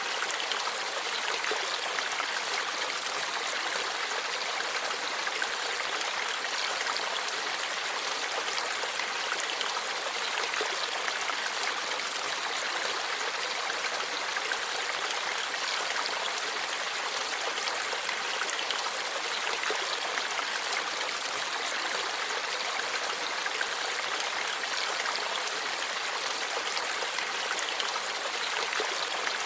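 Forest stream flowing steadily, water babbling over rocks.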